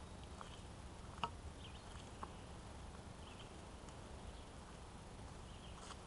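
Quiet woodland with a steady low rumble, a few soft clicks and taps from walking on a dirt trail, the sharpest a little over a second in, and faint short high chirps in the background.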